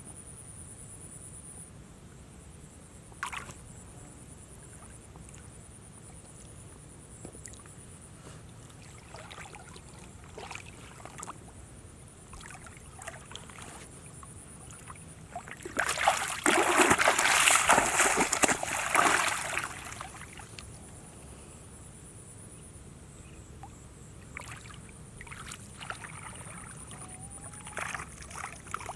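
Water sloshing and splashing from hands working in shallow water, with small scattered splashes and a loud burst of splashing lasting about three and a half seconds past the middle. A thin, high, steady insect drone comes and goes behind it.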